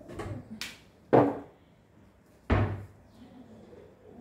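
Two sharp knocks about a second and a half apart, the second one deeper, with fainter knocking just before them.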